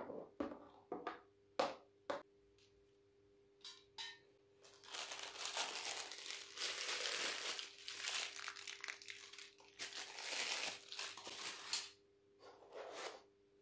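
Packaging being crinkled and rustled by hand while unwrapping: a few sharp handling knocks and clicks in the first few seconds, then a long stretch of crinkling from about five seconds in to about twelve, and a short burst of it near the end.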